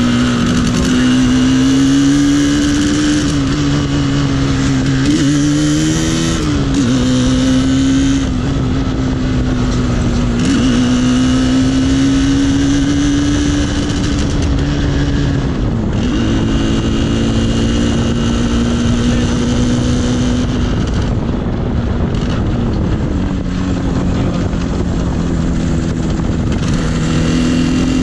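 Yamaha RD 350's two-stroke parallel-twin engine running under way, heard from the saddle, holding a fairly steady pitch that dips briefly and picks up again a few times.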